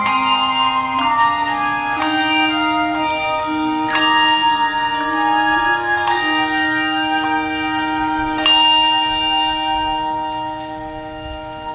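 Handbell choir ringing chords over a low held line from a bass clarinet, the bells struck in steps with each note ringing on. A last chord is struck about eight and a half seconds in and left to ring and fade away: the close of the piece.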